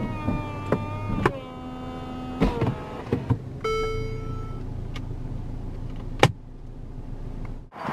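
Mercedes-Benz SLC200's electric folding hardtop and windows finishing their cycle: a steady motor whine that changes pitch about a second in and dies away, then a few clunks as the roof settles and locks, and a short tone. A single sharp click follows as the console flap over the roof switch is shut.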